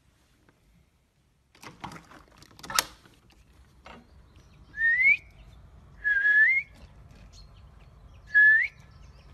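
Clicks and a sharp clack from a door handle and latch as the door is opened, then a person whistling three short rising notes, one every second and a half or so, as if calling an animal.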